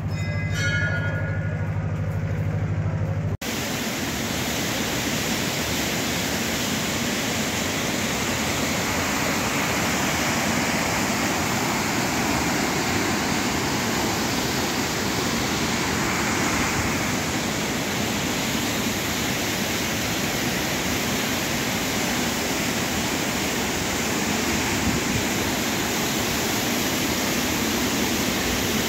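Mountain waterfall rushing down a steep rock face: a loud, steady wash of falling water that cuts in abruptly about three seconds in, after a low steady hum.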